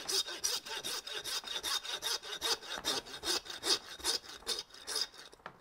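Hand meat saw, a steel-framed bow saw, sawing down through the bone of a beef short loin with steady back-and-forth strokes, several a second.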